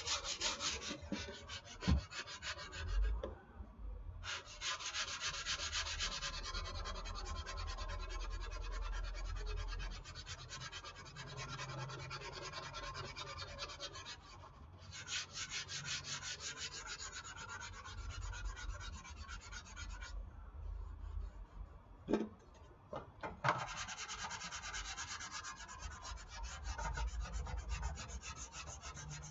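Hand sanding of dried white spackle putty on a foam RC airplane wing with sandpaper: quick scratchy back-and-forth strokes in several long runs with short pauses. Two short knocks fall in the last pause, about three-quarters of the way through.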